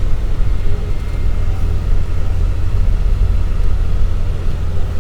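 Off-road vehicle driving along a snow-drifted mountain track, with a steady low rumble of engine and running gear.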